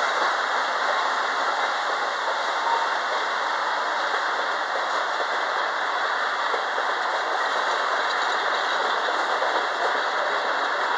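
Freight cars of a stone train rolling past, a steady noise of steel wheels running on the rails.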